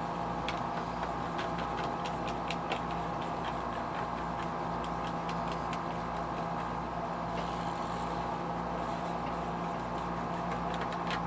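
Light, irregular clicks and taps of fingers handling a plastic jerkbait lure, thick for the first few seconds and sparser after, over a steady background hum.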